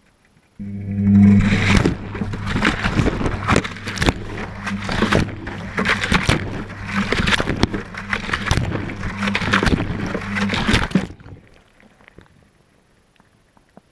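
Whirlpool Indiana 1400 washing machine's drum turning during a wash cycle, heard from inside the drum: a steady motor hum with water sloshing and irregular knocks as the load tumbles. It starts suddenly about half a second in and stops abruptly about eleven seconds in, the pause between tumbling turns.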